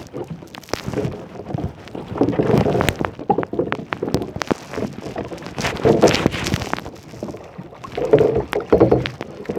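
Water splashing and sloshing around a kayak in uneven swells, with many small clicks and knocks.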